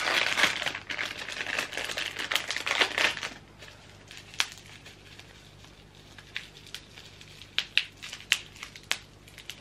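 Product packaging crinkling and rustling as it is handled and worked open for about three seconds, then scattered light clicks and taps.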